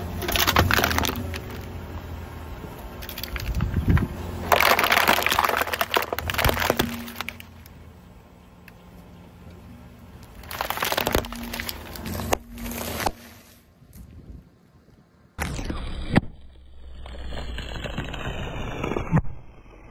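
A car tyre rolls over and crushes a series of objects in turn: an aluminium drink can, a clear plastic bag of small wrapped items, and a foil bag of crunchy snacks. Each makes a loud burst of crackling and crunching, with quieter gaps between.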